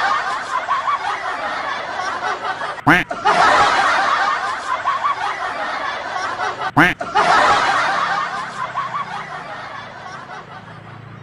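Canned laughter sound effect: a crowd laughing, cut in abruptly again about three seconds and about seven seconds in, the last one fading out gradually.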